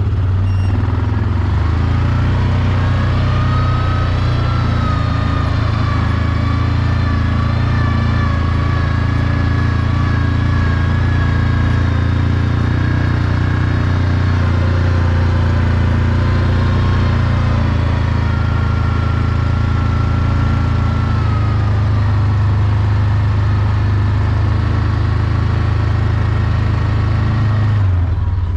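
Hisun Axis 500 UTV's engine running under way in low gear: a steady low drone with a whine above it that rises a few seconds in, holds, and shifts in pitch as the speed changes.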